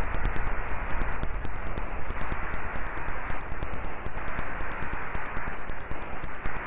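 Steady static hiss and low rumble with a rapid run of fine crackling clicks, the noise of a cheap computer microphone recording.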